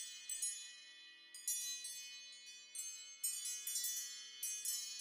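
Faint background music of high-pitched chimes, struck at uneven moments and each ringing on.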